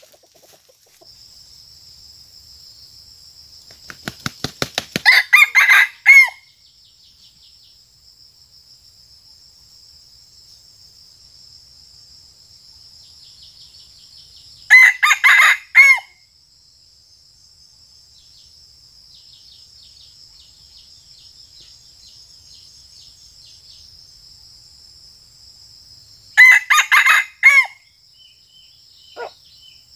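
Red junglefowl decoy rooster of the stuttering-crow ('kokok gagap') kind crowing three times about ten seconds apart, each crow short and broken into several choppy pieces; the first is led by a quick run of wing flaps. A steady high insect drone runs underneath.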